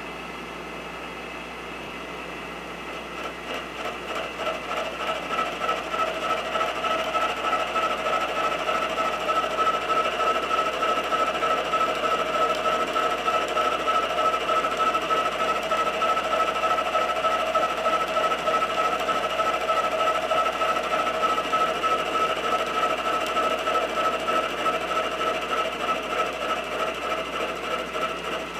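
Milling machine spindle running, then an end mill side-cutting a hex flat on 4140 steel: the cut starts about three seconds in and grows louder, with a steady high-pitched whine and a fast, even ripple. It eases slightly near the end.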